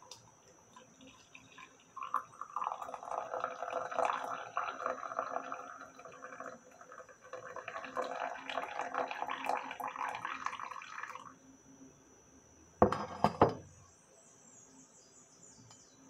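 Coffee poured in a thin stream from a jug into a ceramic mug, splashing for about nine seconds with a short lull midway. Near the end, a few sharp knocks as the jug is set down on the stone counter.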